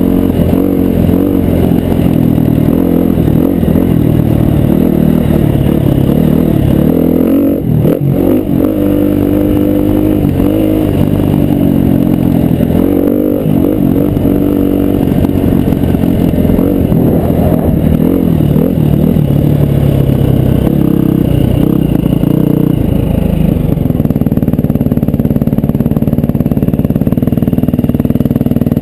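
Dirt bike engine running hard under way, its note rising and falling as the throttle opens and closes over the track, steadier near the end.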